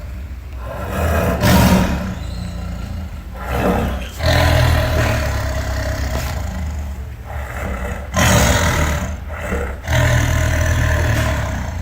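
Designed dinosaur roars for an Acrocanthosaurus, layered from King Kong (2005) creature sounds and big cat roars: a run of deep, rumbling roars and growls. New roars swell up about a second and a half in, at about four seconds, at about eight seconds and at about ten seconds.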